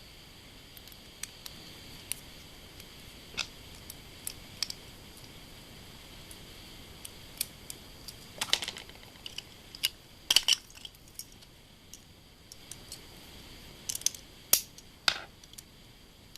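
Small plastic and metal spinning-top parts clicking and clacking together as a Beyblade is assembled by hand. Scattered sharp clicks, with louder bunches of clacks around the middle and near the end.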